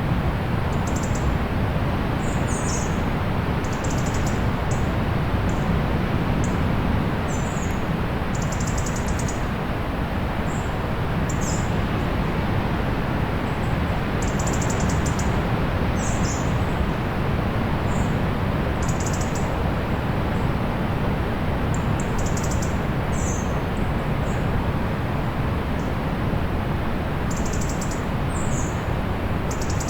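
Small birds giving short, high chirps, some with a quick glide, about one every second or two, over a steady hiss and rumble of distant sea surf.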